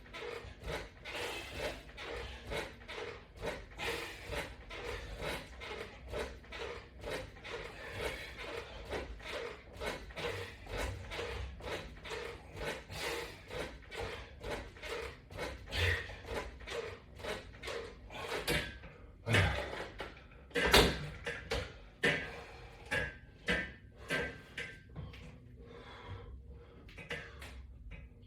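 Repeated bench pull-down crunches against resistance bands on a latch-bar rig: quick rhythmic knocks at about two a second, giving way in the last ten seconds to a few louder, spaced knocks and clatters.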